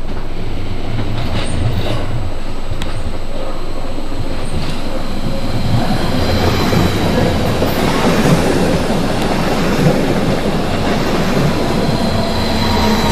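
SOB RABe 526, a Stadler FLIRT electric multiple unit, rolling slowly along the platform. There is a steady rumble and clatter of wheels on rails, growing a little louder as it passes close, with a thin high tone from about halfway through.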